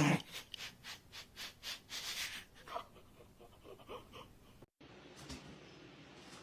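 Rapid breathy puffs, about four a second, loud at first and fading away. They stop at a sudden cut, after which there is only faint room noise.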